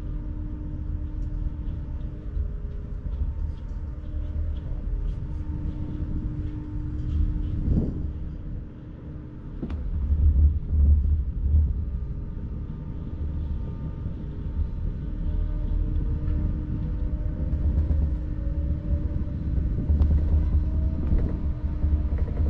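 Garaventa six-seater chairlift running during a ride: a loud, uneven low rumble with a faint steady hum over it. There is a sharp click about ten seconds in, and a faint tone rises slowly through the last third.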